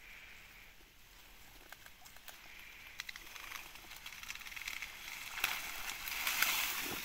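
Cast net hauled out of the water up through dry reeds: rustling and crackling of reed stalks, with water pattering off the net, growing louder over the last two seconds.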